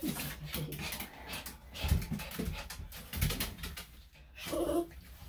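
Senior Maltese/Shih-Tzu cross dog whining in short calls, one falling in pitch at the start and another near the end, amid clicks and rustling.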